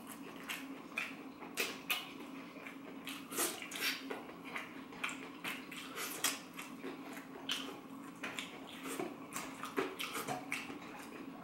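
Close-miked eating sounds: irregular wet chewing, lip smacks and finger-licking clicks from eating a deep-fried stick crusted in Flamin' Hot Cheetos, over a steady low hum.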